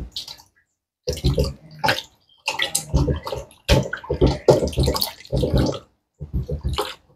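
Water splashing and sloshing in a stainless steel bowl as hands wash and rub raw chicken breast with lime, in irregular bursts.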